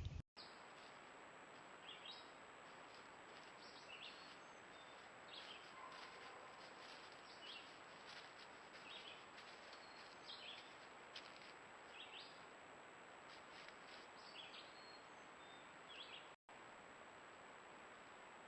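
Faint, short bird chirps repeating every second or so over a steady hiss from the trail camera's microphone.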